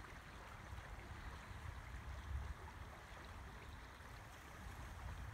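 Steady rush of a flowing river, with a low rumble underneath.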